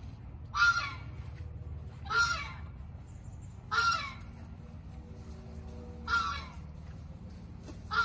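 A bird calling: five short, loud calls spaced about two seconds apart, each falling slightly in pitch, over a steady low rumble.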